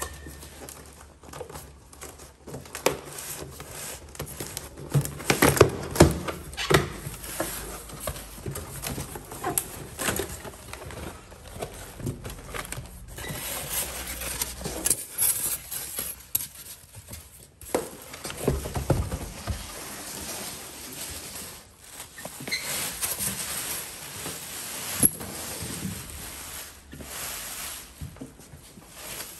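Cardboard box and plastic packaging being handled while a portable generator is unpacked: flaps and packing card pulled about, plastic wrap crinkling, with irregular knocks and bumps.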